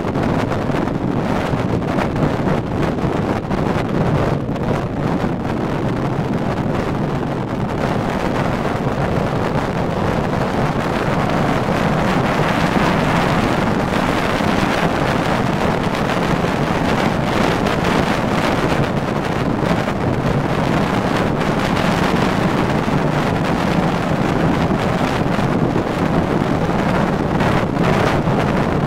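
A car driving at steady speed, heard from inside the cabin: a steady drone of engine and tyre noise, with wind rushing over the microphone.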